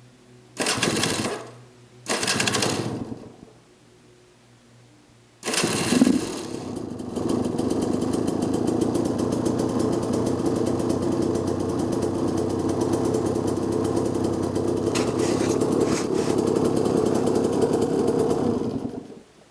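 2005 KTM 200 EXC's single-cylinder two-stroke engine, converted to electric start: two short bursts on the starter, then on the third try it fires and runs steadily at idle for about twelve seconds before being shut off abruptly.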